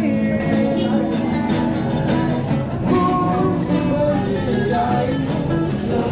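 Acoustic guitar strummed by a street musician, with a voice singing along.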